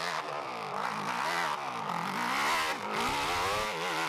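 Dirt bike engine revving hard under load up a steep hill climb, its pitch swinging up and down again and again as the throttle is worked. The sound drops away suddenly at the very end.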